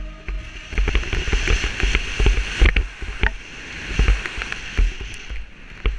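Skis hissing and scraping through snow during a fast downhill run, with irregular knocks and chatter as they ride over bumps and old tracks. Wind buffets the camera's microphone.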